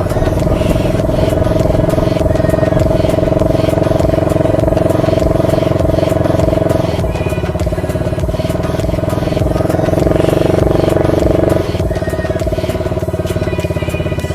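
A 125cc ATV engine running steadily under way. Its note shifts about halfway through and drops a little in level near the end.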